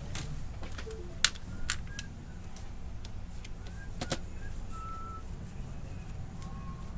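Screwdriver working screws in an inkjet printer's metal frame: scattered clicks and ticks of metal on metal, the sharpest a little over a second in, over a steady low hum.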